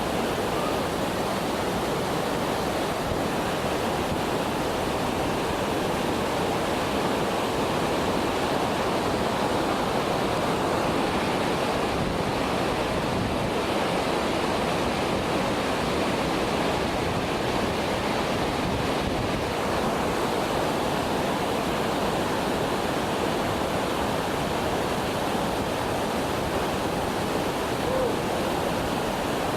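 Waterfall, its water rushing and crashing in a steady, unbroken roar.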